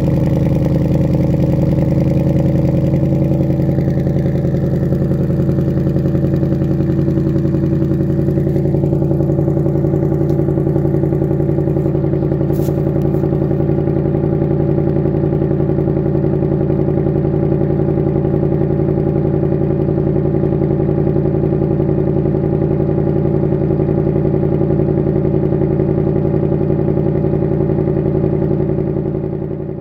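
Ford Mustang Bullitt's 5.0 V8 idling steadily, heard close to the exhaust tips, with no revving; the higher part of the sound softens slightly about eight seconds in.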